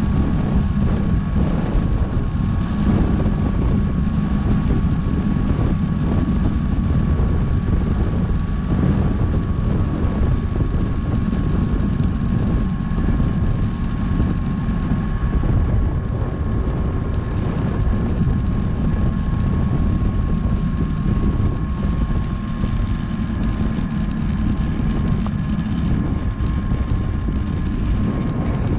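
Wind rushing and buffeting over an action camera's microphone on a bicycle coasting fast downhill, a steady rumble that gusts up and down, with a thin steady whine above it.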